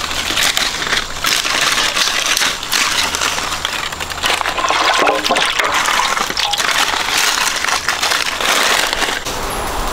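Water splashing and sloshing, with many small knocks and clicks throughout, as something is washed by hand in water.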